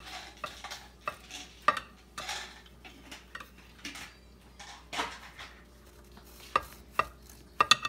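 A knife sawing through a loaf of banana bread on a plate, in several scraping strokes, with the blade clicking against the plate now and then, several times in quick succession near the end.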